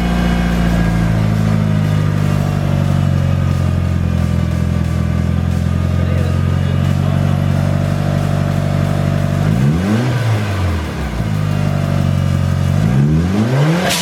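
Turbocharged car engine with a freshly fitted Turbosmart blow-off valve, idling steadily just after its first start. It is then blipped twice, the revs rising and dropping quickly about ten seconds in and again near the end, with a brief hiss right at the end.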